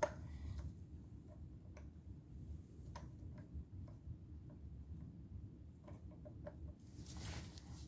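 Faint, irregular small clicks and taps of small metal parts and a tool being handled on the chainsaw's sprocket shaft, over a low steady hum.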